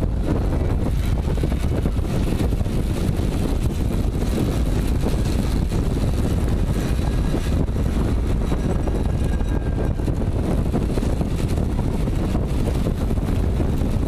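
Steady low rush of wind on the microphone of a camera mounted on a track bike racing at speed on the wooden boards of a velodrome, mixed with rolling noise from the bike.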